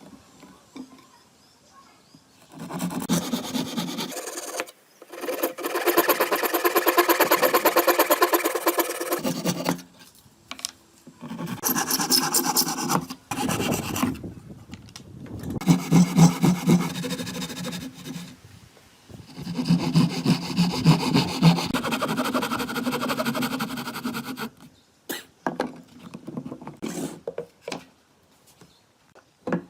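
A hand or power tool rasping and rubbing against wood in several long stretches a few seconds each, with short pauses between them. A few short knocks come near the end.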